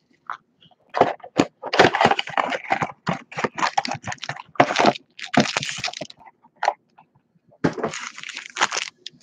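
A cardboard trading-card blaster box being torn open and its paper tray pulled out, with the wrapped card packs crinkling as they are handled: a string of short tearing and crackling bursts with brief pauses.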